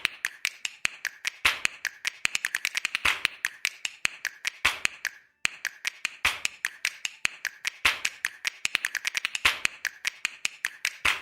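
Dry, rapid percussive clicks in a syncopated pattern, several to the second with louder accents and a short pause midway: a stripped-down percussion break in the electronic background music, with no bass under it.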